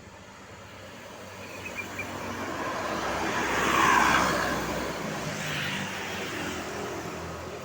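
A road vehicle passing close by. Its noise builds to a peak about four seconds in, then fades away.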